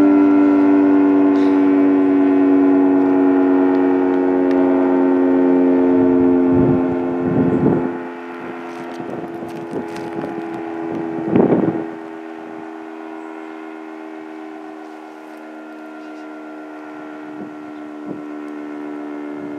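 Federal Signal 3T22A three-tone siren sounding its steady chord of several held tones, the pitch sagging slightly. It grows much quieter about eight seconds in and carries on at the lower level. Two short bursts of low rumble come near the middle.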